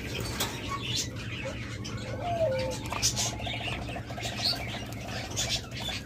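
Caged ringneck doves stirred up by handling: a short falling coo a little after two seconds, then a fast rolling coo lasting about two and a half seconds, with wing flutters and rustling against the cage. A steady low hum runs underneath.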